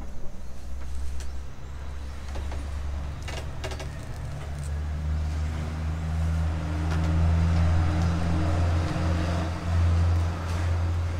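A low, steady engine hum that grows louder in the second half, with a few light clicks a little over three seconds in.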